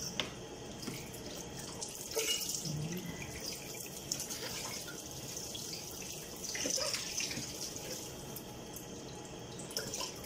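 Kitchen tap running into a sink while a white plastic baby-bottle sterilizer container is rinsed under it, water splashing in and off the container. The splashing swells briefly about two seconds in and again about seven seconds in.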